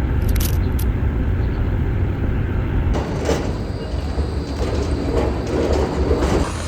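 City street traffic: a steady low rumble of passing vehicles, such as a bus.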